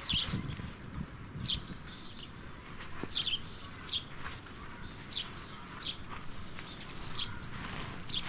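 A small bird chirping over and over, short high chirps about once a second, over steady outdoor background noise. Low rustling in the first second or so.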